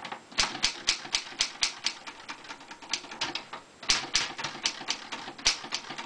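Typing on a 1968 Commodore 2200 portable manual typewriter: quick runs of sharp key-and-typebar clacks, about four or five a second, broken by short pauses.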